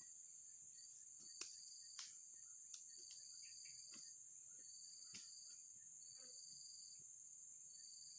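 Insects calling: a steady high drone, with a second insect's trills repeating about once a second over it. A few faint clicks in the first half.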